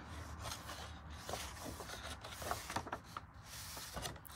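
Faint rustling and soft taps of a colouring book's paper pages being turned and handled.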